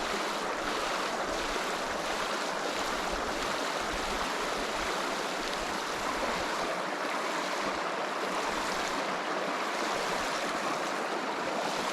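A small river running, a steady rush of flowing water.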